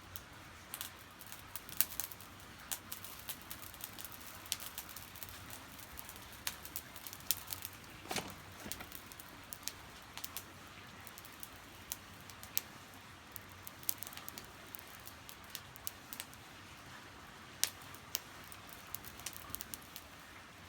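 Wood fire in a fire pit crackling, with irregular sharp pops and snaps, several a second, over a low steady hiss, as it throws off sparks.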